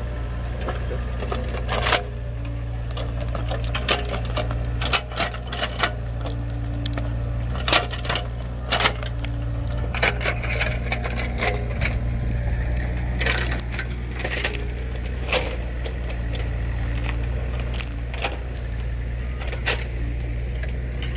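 Mini excavator's diesel engine running steadily while the bucket works stumps and soil, with frequent sharp clanks and knocks at irregular intervals.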